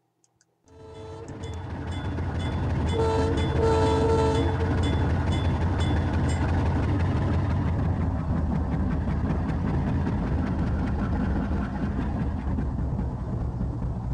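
Diesel locomotive running with a steady low rumble that fades in over the first couple of seconds. Its multi-note air horn sounds twice in quick succession about three seconds in.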